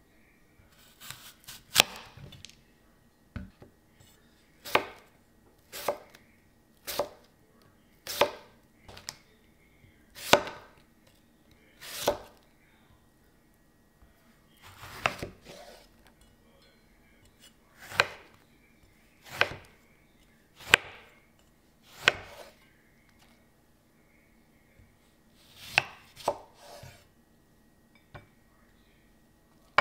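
A kitchen knife slicing through an orange and a lemon on a wooden cutting board. The blade strikes the board in about twenty separate sharp knocks, spaced unevenly, sometimes in quick pairs and sometimes a few seconds apart.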